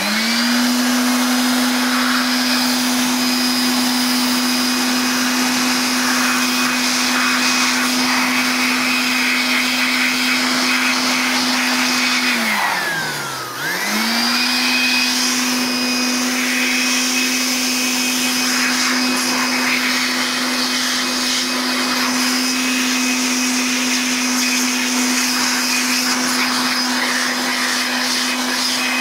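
Handheld electric air blower running at full speed, its nozzle blowing air into a laptop's vent grilles to clear out dust: a steady motor hum over rushing air. A little under halfway through, the motor briefly winds down, falling in pitch, then speeds back up.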